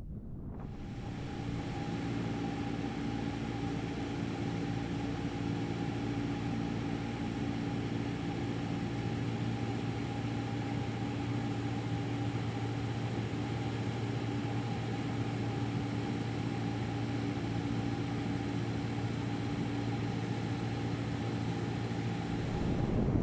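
Steady engine drone with an unchanging pitch over a hiss of noise, coming in just after the start and cutting off abruptly at the end.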